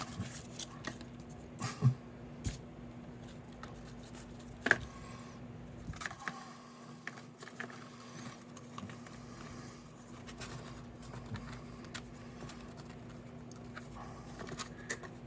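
Faint handling sounds of cardstock being fitted and pressed into a box card: scattered small taps and rustles, the sharpest tap about five seconds in, over a steady low hum.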